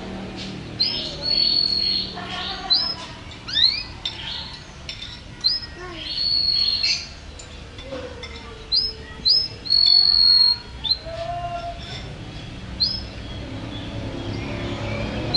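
Domestic canary singing a varied song of short, high upswept chirps, some repeated in quick runs and a few held for a moment, with occasional lower whistled notes.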